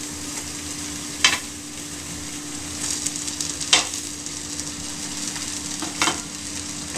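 Grilled pineapple pieces sizzling and simmering in a butter, brown sugar and rum sauce in a sauté pan, with metal tongs clinking against the pan three times as the pieces are turned.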